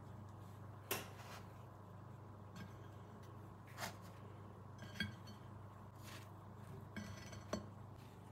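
Dishes and utensils being handled: five or six light clinks and knocks, spaced a second or more apart, over a steady low hum.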